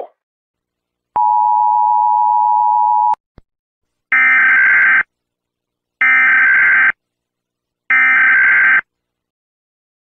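Emergency Alert System tones: about a second in, a steady two-tone attention signal sounds for about two seconds and stops with a click. Then come three identical short bursts of buzzing data tones, each under a second long and about two seconds apart, like an EAS digital header.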